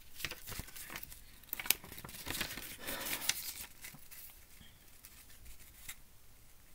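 Paper rustling and crinkling as a small booklet's pages are handled and turned, with a few sharp crackles in the first half, then fainter rustling.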